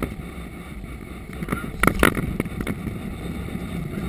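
Steady rush of airflow and engine noise in an Airbus A330-200 cockpit, low over the runway in the landing flare, with two short sharp sounds close together about two seconds in.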